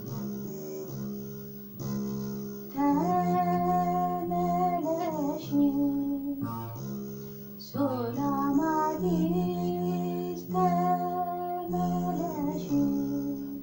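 A begena, the large Ethiopian lyre, plucked in a slow, low repeated pattern. From about three seconds in a woman sings a hymn (mezmur) over it, with a short break in the singing about halfway through.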